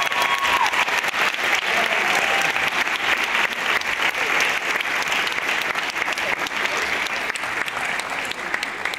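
Audience applauding: many hands clapping steadily in a large hall, easing off a little near the end.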